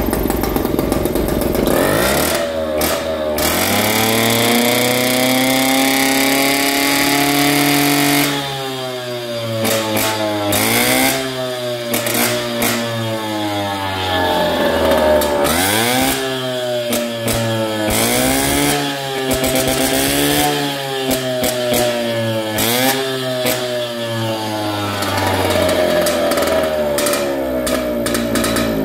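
Mobylette moped's small two-stroke single-cylinder engine running: its pitch climbs and holds high for a few seconds, then it is revved up and let drop back over and over, about every two seconds, before running steadier near the end.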